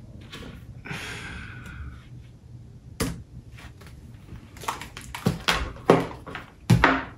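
Over-ear headphones being taken off and handled: some rustling, then from about three seconds in a string of sharp knocks and clicks as they are lifted off and moved about.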